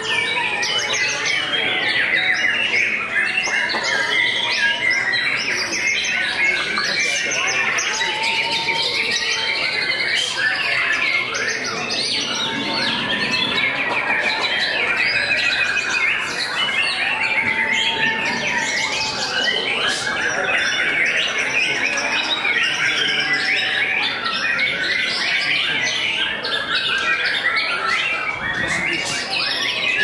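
White-rumped shama (murai batu) singing a long, unbroken, varied stream of quick whistles and chattering notes.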